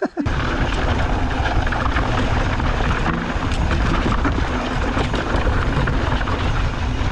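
Wind rushing over a helmet- or body-mounted camera's microphone and knobby tyres rolling over a dirt trail as a mountain bike rides downhill, with a steady rush and small rattles throughout. It starts suddenly just after the beginning.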